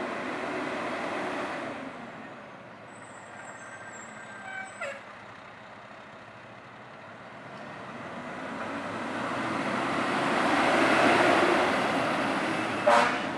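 Aerial ladder fire truck pulling out of the station and driving past close by. Its engine grows louder to a peak about two-thirds of the way through. A short horn blast near the end is the loudest sound.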